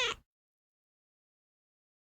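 The falling end of a domestic cat's meow, cutting off just after the start, then silence.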